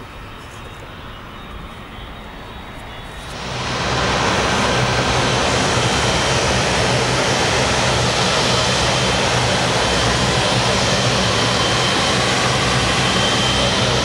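A departing jet airliner heard faintly as it climbs away. About three and a half seconds in there is a cut to the loud, steady running of a Boeing 777-300's two jet engines as it taxis and turns toward the runway.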